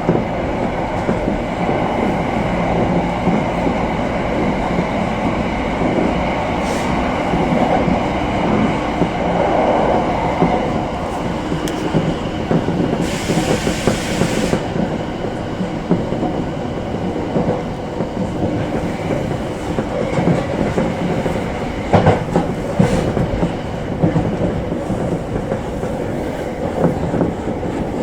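Electric commuter train running, heard from inside the front car: steady wheel-on-rail rumble with clickety-clack over rail joints. A short hiss comes about halfway through, and a couple of sharp clacks near 22 seconds in.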